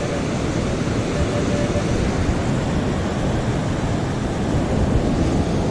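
Steady wash of ocean surf mixed with wind noise on the microphone, with no distinct events.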